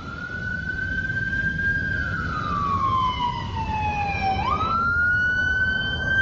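Police siren wailing: the pitch rises, holds, slides slowly down, then jumps back up about four and a half seconds in and holds again, over a steady low rumble.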